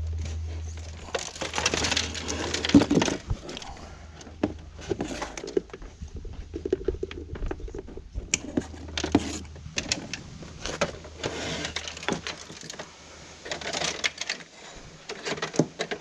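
Irregular knocks, clatter and rustling from a plastic tower fan being handled, over a low steady hum that dies away near the end.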